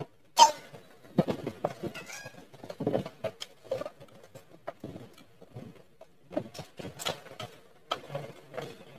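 A girl eating small pieces of octopus close to the microphone: irregular chewing and lip-smacking noises with scattered clicks, the sharpest about half a second in.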